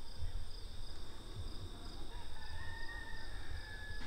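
Outdoor ambience of insects trilling steadily with a faint regular pulse, over a low rumble on the microphone. About halfway through, a faint long high tone comes in and falls slightly.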